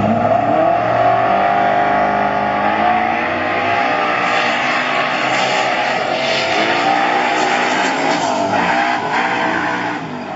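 Several car engines running hard at high revs, their pitches rising and falling as they speed up and slow down, with tyre noise.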